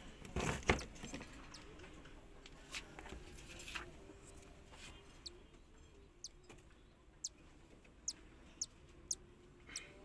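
Cockatiel chick cheeping: short, thin, high peeps that each fall in pitch, about nine of them in the second half. A few soft handling knocks come in the first second.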